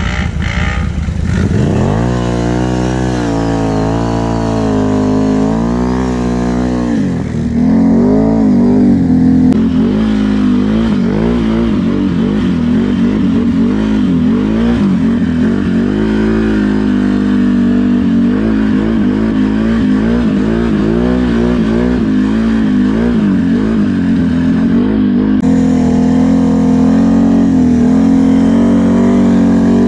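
Can-Am Renegade XMR 1000R ATV's V-twin engine running under way, fitted with an STM tuned secondary clutch; the revs climb at the start and then rise and fall with the throttle. It dips briefly about seven seconds in, then comes back louder.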